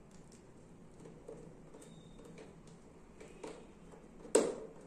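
Small flat-head screwdriver working the screws of a plastic screw terminal block, with scattered faint clicks and ticks. One louder sharp knock comes near the end.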